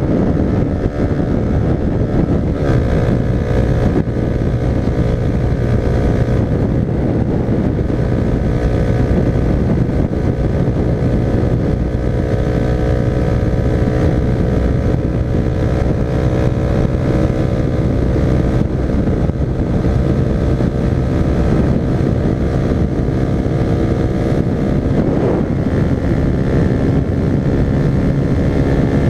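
Honda CB300R motorcycle's single-cylinder engine running under steady load at a constant cruising speed, its pitch holding nearly level throughout.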